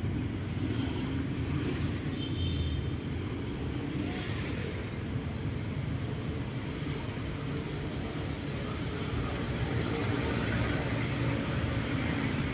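Steady low rumble of outdoor background noise, without speech.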